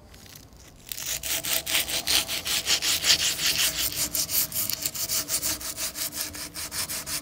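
A strip of abrasive cloth is rubbed back and forth around the rusty collar of a wheel hub, cleaning the seat where the magnetic ABS sensor ring sits. It makes a scratchy rasping at about four strokes a second, starting about a second in.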